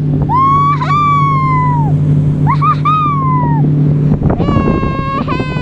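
A dog whining in three long, high, wavering cries over the steady hum of the boat's motor. About four seconds in, the motor's hum gives way to a rougher, noisier rumble.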